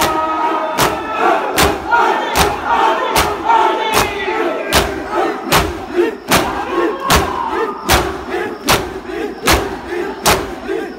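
A crowd of mourners performing matam, striking their chests with their palms in unison, a little more than one beat a second. Massed voices chant and shout between the strikes.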